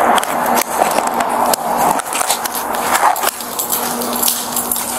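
Rustling and scuffing on a body-worn camera as the wearer walks on a concrete floor, full of small clicks and knocks. A faint steady hum runs underneath from about half a second in.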